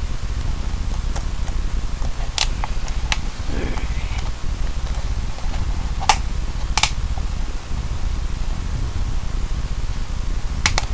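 Steady low hum, with a handful of sharp clicks and a brief rustle as duct tape and the hat's cardboard and fabric are handled.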